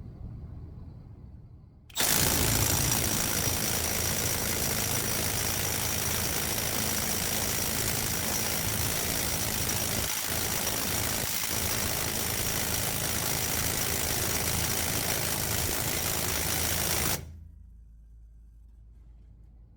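Milwaukee M12 1/2-inch drive right angle impact wrench hammering continuously on a 2-inch socket under load in a torque test, with a steady high motor whine. It starts abruptly about two seconds in and cuts off about fifteen seconds later.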